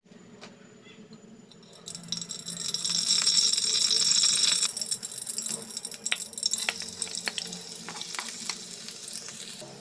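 Cooking oil being poured into a wok: a run of pouring liquid starting about two seconds in and stopping about halfway. It is followed by a faint crackle of oil heating in the pan, with scattered light clicks as minced garlic goes in and is pushed about with a wooden spatula.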